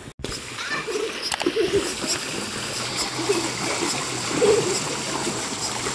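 Children splashing and swimming in a swimming pool: continuous splashing and sloshing water.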